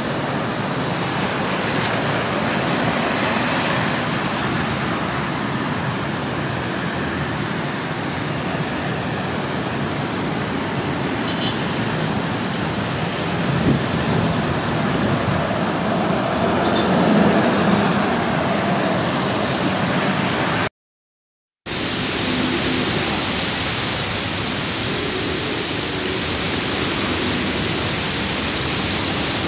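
Steady hiss of rain and traffic on wet city streets, picked up outdoors on a phone or body camera. The sound drops out for about a second two-thirds of the way through, then the hiss returns with a sharper high edge.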